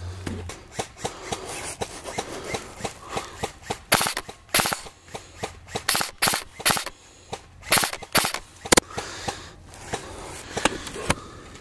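Electric airsoft rifle, a Krytac LVOA-C, firing a long string of single shots at an irregular pace, with the sharpest, loudest cracks from about four to nine seconds in.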